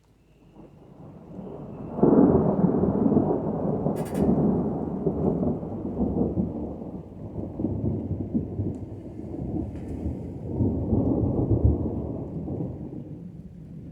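Thunder rolling: the rumble builds over the first couple of seconds, jumps up suddenly into a loud peal, then keeps rolling with a second swell before dying away near the end.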